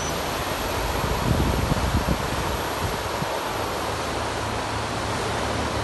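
Steady rushing, splashing water as a small homemade RC boat made from plastic bottles churns across a swimming pool, with a few low bumps in the first two seconds.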